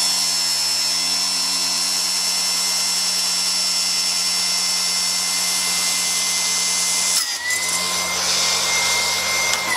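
Milwaukee table saw running steadily with a high motor whine while ripping a thin wooden drawer-organizer panel along the fence. The tone wavers and dips briefly about seven seconds in, then steadies again.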